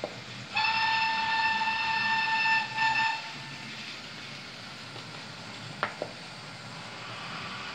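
A model locomotive's sound unit sounds a single-pitched train horn through its small speaker: one blast of about two seconds, then a short second blast. Two light clicks follow a few seconds later, over a steady low background hiss.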